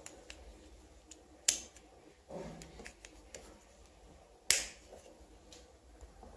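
Two sharp plastic clicks about three seconds apart, with fainter ticks and rustling of handling between them: the plastic cover of a two-pin electrical plug being fitted back on.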